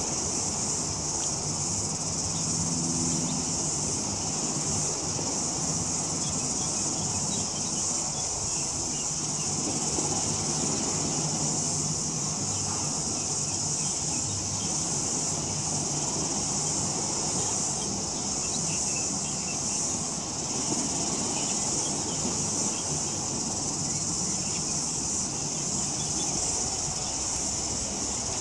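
A steady, high-pitched insect chorus over a constant low rumble.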